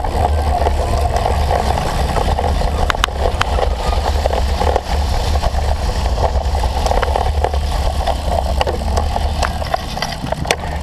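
Steady wind rumble on the microphone and the noise of a cyclocross bike being ridden hard over rough ground, with scattered clicks and knocks from the bike.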